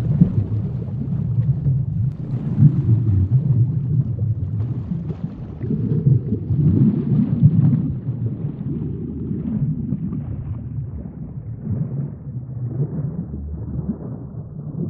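Low, rumbling underwater sea ambience that swells and ebbs every second or two, with a faint hiss above it.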